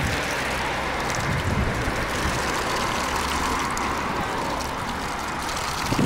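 Steady noise of road traffic, cars driving along the street, with a low rumble under an even hiss.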